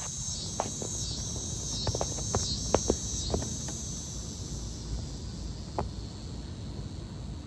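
Insects calling, a high pulsing buzz that repeats about every 0.7 s and fades out around four seconds in, with a few short clicks over a steady low rumble.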